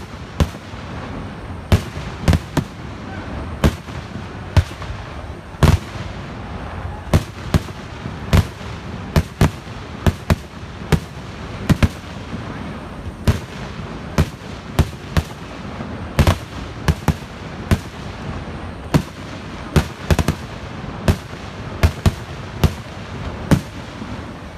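Fireworks display going off in a rapid, irregular run of sharp bangs, about one to two a second, over a steady background noise.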